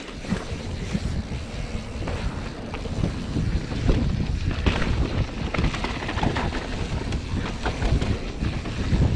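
Mountain bike descending a dirt trail: wind buffeting the microphone over the rumble of knobby tyres on dirt, with frequent clicks and rattles from the bike over bumps.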